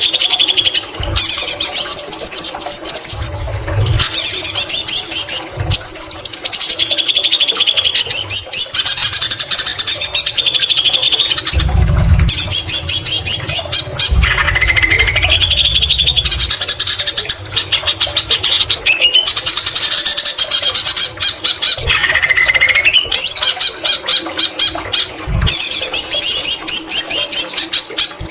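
White-rumped shama singing a long, loud, varied song of fast trills and whistled phrases, its repertoire filled with mimicked greater green leafbird (cucak ijo) calls. A few short low thumps sound under the song.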